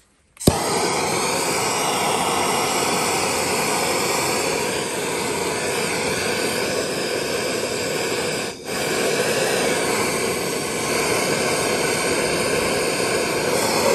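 Handheld gas torch lit with a sharp click of its igniter about half a second in, then its flame running with a steady loud hiss as it heats a rusted-on shaft to free it. The hiss drops briefly once, about two-thirds of the way through.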